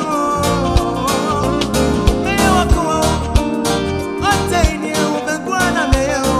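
Live band playing with electric bass, drum kit, keyboard and guitar over a steady kick-drum beat about every two-thirds of a second, with a gliding melodic line above.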